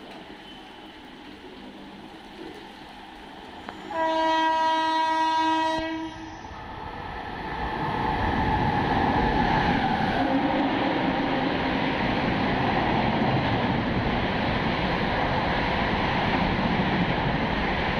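The Sampoorna Kranti Express blows its locomotive horn once, a steady blast of about two seconds, about four seconds in. Then a loud rushing noise builds as the express runs through the platform at speed without stopping, and it stays loud to the end as the coaches race past.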